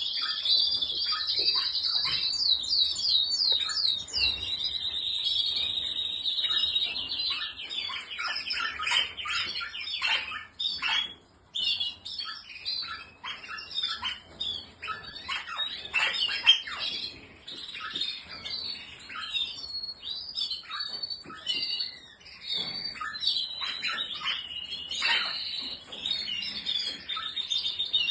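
Several canaries singing and chirping together. Long rolling trills open the passage and come back near the end, with many quick chirps in between.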